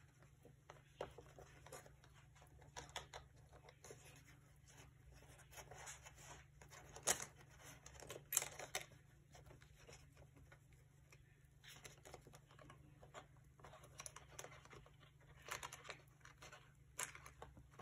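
Faint, scattered sounds of paper and craft materials being handled: soft rustles and light taps, with two sharper clicks about seven and eight and a half seconds in.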